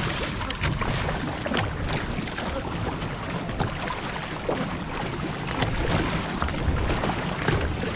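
Water rushing and splashing along the hull of an outrigger canoe under way, with the paddlers' blades pulling through the water in short splashes.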